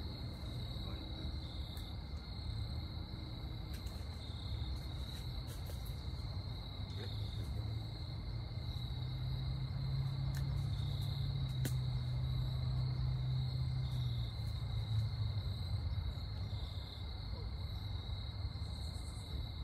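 Steady evening insect chorus, a continuous high trill, over a low rumble that swells for a few seconds in the middle. A few faint clicks.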